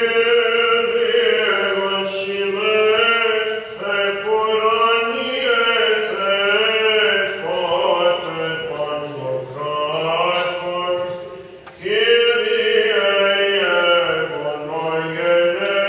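Byzantine chant: a Greek Orthodox chanter singing a slow, melismatic hymn unaccompanied, with a short break for breath about twelve seconds in.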